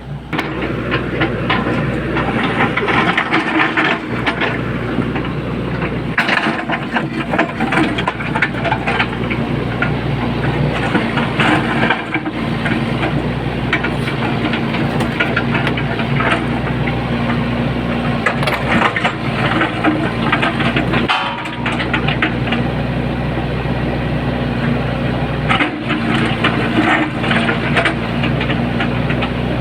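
Excavator's diesel engine running steadily, with irregular cracking and knocking over the engine note.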